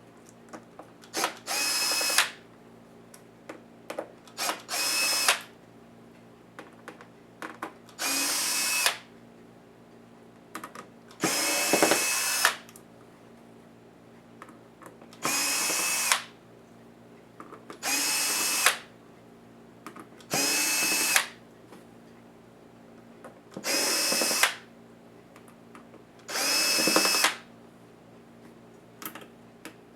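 Small electric screwdriver whining in nine short bursts of under a second each, about every three seconds, as it drives laptop case screws, with faint clicks between the bursts.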